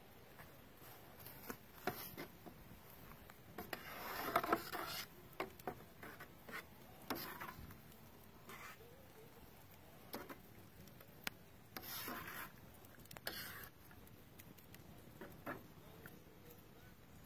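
Faint scraping and scattered clicks of a long-handled spatula stirring chili in a large enamel stockpot, with a few louder scrapes.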